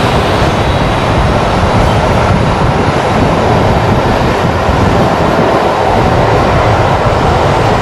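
Boeing 737 jet engines running steadily at taxi power as the airliner rolls slowly along the runway, a loud, even rush of engine noise over a low hum.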